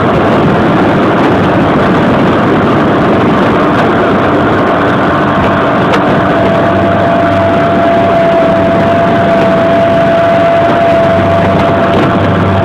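Bayliner 185 bowrider's sterndrive engine running steadily, heard from on board with a steady whine over a dense rush of noise.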